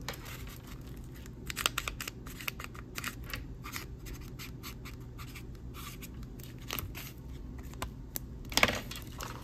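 Sharpie marker writing on brown paper wrapping: a run of short scratchy strokes as the felt tip moves across the paper, with a louder bump near the end.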